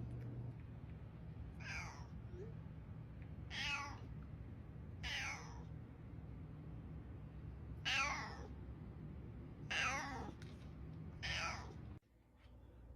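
Domestic cat meowing six times, each meow short and falling in pitch. A steady low hum runs underneath and cuts off suddenly near the end.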